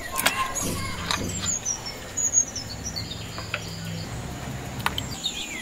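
Birds chirping, with a few light clicks and knocks from green mandarins being squeezed by hand over a clay pot of water.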